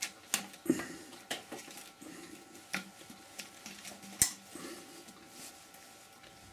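Workshop handling sounds: a hand tool clicking, knocking and scraping against the rotten wood on the lathe. There are about half a dozen sharp clicks spread irregularly, with the loudest knock about four seconds in.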